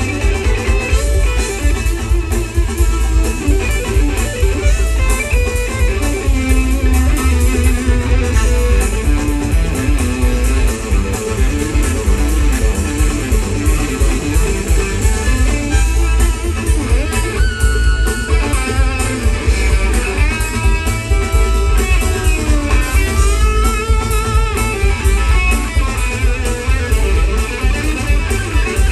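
Live band playing an instrumental jam: electric guitar leading over upright bass and drums. The low end is heavy, as heard from the crowd.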